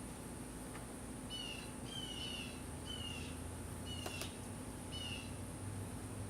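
A bird repeats a short, falling whistled note about six times. Under it runs a faint steady hum of honeybees at the open hive, with two light clicks.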